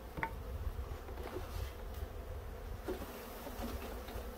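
Honeybee swarm buzzing steadily, with a couple of light knocks.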